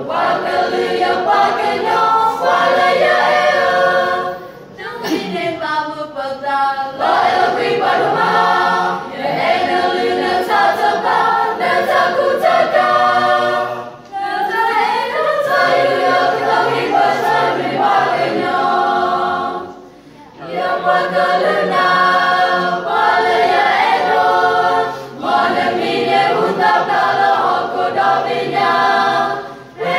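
A choir singing unaccompanied, in long phrases separated by brief pauses.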